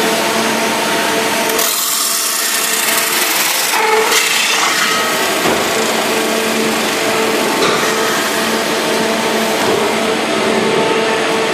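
Metal-spinning lathe forming a copper cone, the forming roller rubbing on the spinning copper over a steady machine hum, giving a continuous loud rushing noise. About a second and a half in, it turns harsher and hissier for about two seconds.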